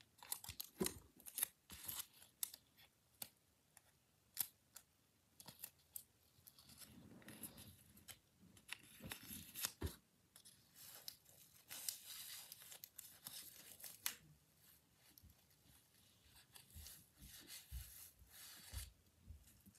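Faint, irregular crinkling and rustling of taped paper being handled, with scattered small clicks and a few longer scratchy stretches.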